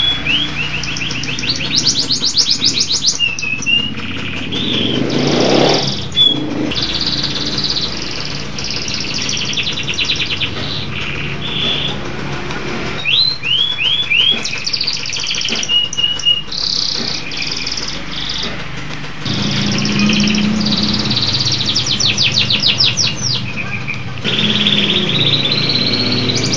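Domestic canary singing a long, almost unbroken song of rapid high trills mixed with short whistled notes.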